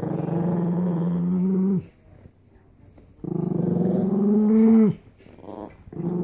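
A Chihuahua growls in long, drawn-out growls, three of them with short gaps between, each dropping in pitch as it ends. It is a warning growl: the dog is guarding a bone.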